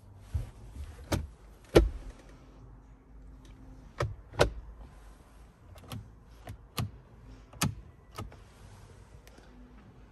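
A hand tapping and pressing the plastic dashboard controls and trim of a Kia Carnival: about ten sharp clicks and knocks at an uneven pace, the loudest about two seconds in.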